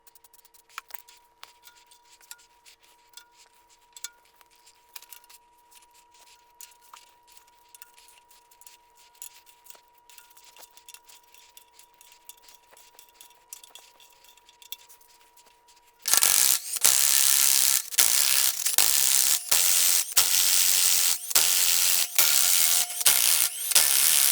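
Light metallic clicks and clinks of tools working the rocker arm nuts on a Ford 300 inline-six head, over a faint steady hum. About two-thirds of the way in, a power ratchet starts suddenly, loud and in repeated bursts with short pauses, spinning the loosened rocker nuts off.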